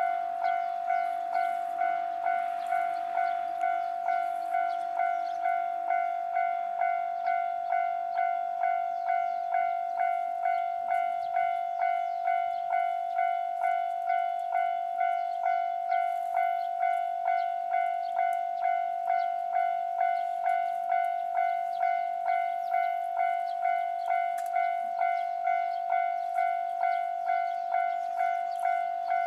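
Japanese railway level-crossing warning bell ringing continuously, a steady clanging tone repeating at about one and a half strikes a second.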